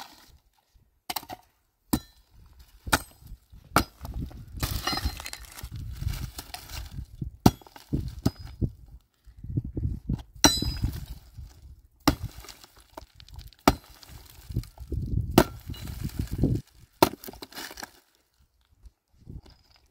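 A pickaxe striking rocky, dry ground and woody roots: about a dozen sharp hits, one every second or two, with a clink of metal on stone, and duller scraping and crumbling between strikes as the earth and roots are dug loose.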